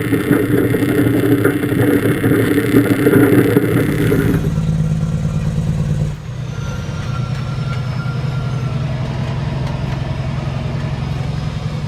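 Log truck's diesel engine running steadily. The engine sound changes abruptly about four seconds in and again about six seconds in.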